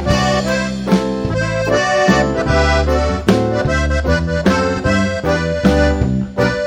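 Live band music, an instrumental passage with a melody line over a bass line and a regular drum beat, no singing.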